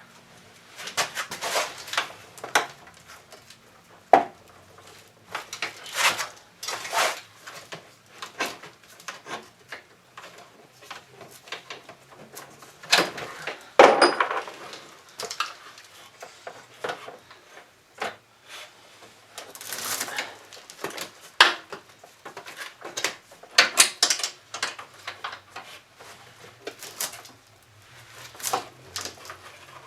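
Irregular metallic clanks, knocks and scrapes of a Honda Dio scooter engine and its mounting hardware being worked free of the frame. Two louder flurries of clatter come near the middle and about two-thirds of the way through.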